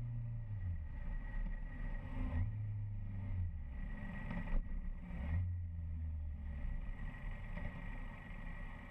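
Motorcycle engine running along the road under steady road and wind noise; its low note swells three times, each for about a second and a half, as the throttle is opened and eased off. A faint steady high whine runs underneath.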